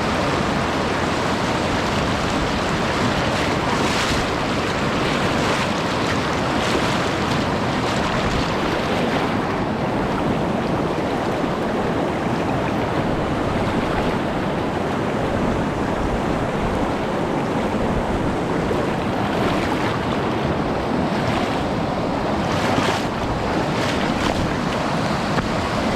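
Mountain stream rushing steadily over rocks, a loud, even wash of water noise.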